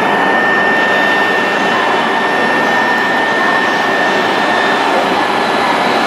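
Hokuriku Shinkansen train standing at the platform, its on-board equipment giving a loud, steady whirring hiss with a steady high whine above it.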